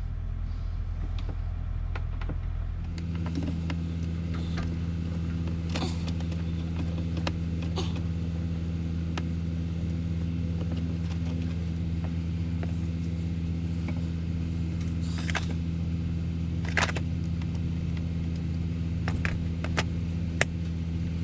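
A truck's diesel engine idling with a steady low hum that shifts slightly in tone about three seconds in. Over it come scattered light clicks and taps of a screwdriver working the screws of a dash cover.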